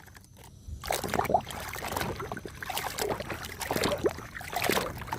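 Water splashing and sloshing in irregular bursts as a toy is washed, starting about a second in.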